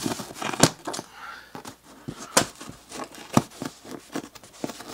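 Scissors cutting plastic packing straps on a cardboard box: several sharp snaps, with light rustling of cardboard and plastic in between.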